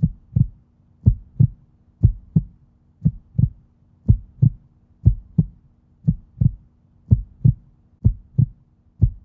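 Heartbeat sound effect: a steady double thump, about one pair a second, over a faint low hum.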